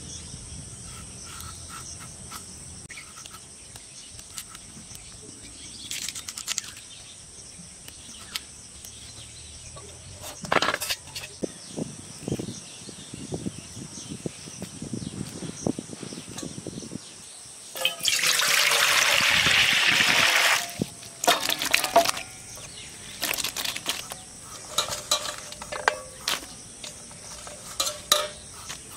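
Water poured into a steel bowl of cut Malabar spinach (pui shak) for about two and a half seconds, a little past the middle, followed by splashes and knocks as the leaves are handled in the water. Before it, faint scraping and a few knocks under a steady high insect drone.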